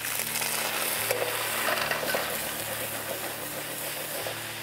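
Food sizzling hard in a wok over a strong flame as it is stir-fried, loudest in about the first second, over a steady low hum.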